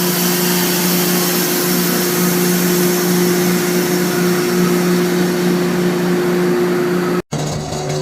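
Sawmill machinery running steadily: a loud motor hum with a wide hiss. It cuts off abruptly about seven seconds in, and a similar machine sound resumes.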